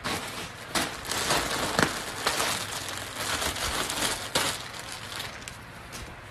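Clear plastic packaging crinkling and rustling as it is handled and pulled open. It is loudest from just under a second in until about four and a half seconds, then settles to softer rustling.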